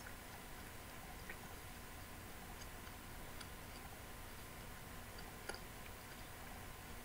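Faint mouth sounds of a person chewing whole-grain rye bread: a few soft clicks a couple of seconds apart over a low steady hiss.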